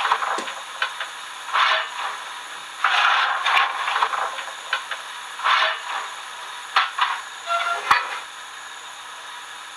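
The DCC sound decoder of a Fleischmann P 10 model steam locomotive plays its standing operating sound: steam hissing in repeated bursts every second or two, with a few short clanks, over a steady background hiss.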